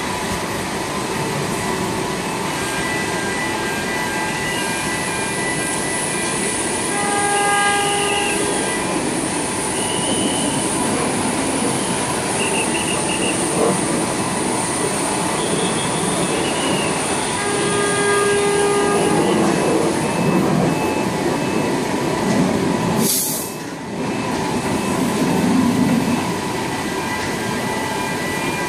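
Goliath gantry crane hoisting a heavy ship block: a steady mechanical running noise with a high whine over its first two-thirds and several short horn-like tones in the middle, then a brief dip near the end.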